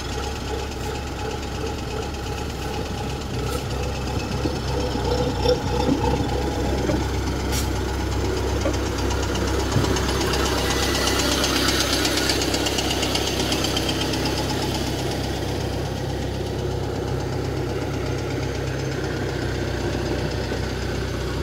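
Tracked rice combine harvester's diesel engine running steadily close by. It gets louder for a few seconds around the middle.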